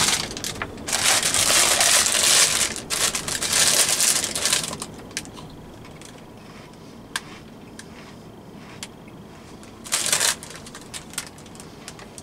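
Plastic crisp packet crinkling and rustling as it is handled, loudest through the first few seconds, then scattered small crackles and a short rustle about ten seconds in.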